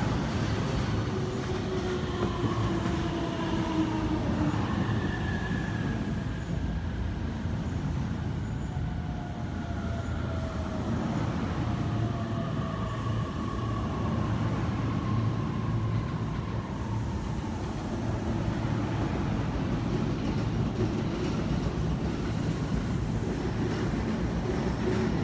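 Shonan-Shinjuku Line electric commuter train pulling out, its motor whine falling slowly in pitch as it moves off, over a steady rumble of wheels on rail.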